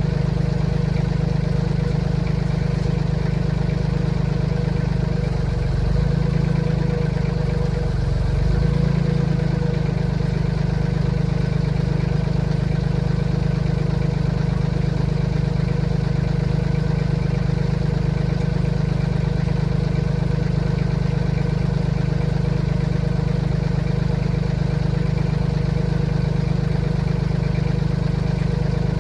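Compact tractor engine running steadily at idle, with two brief changes in its low hum about six and eight and a half seconds in.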